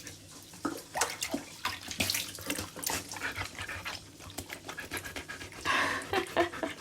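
Siberian husky lapping water greedily with its whole muzzle dunked in, in quick irregular wet slurps and splashes, with panting; a louder splashy burst comes near the end.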